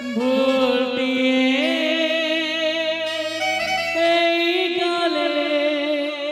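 Slow background music: a melody of long held notes with a wavering vibrato over low sustained bass notes that shift a few times. A man's voice speaks one last word about a second in.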